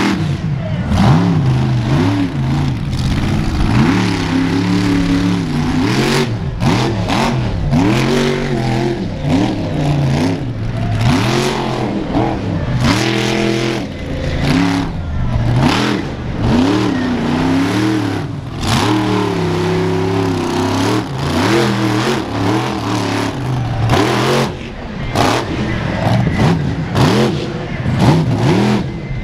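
Monster truck's supercharged V8 engine revving up and falling back over and over as the truck drives and turns on dirt.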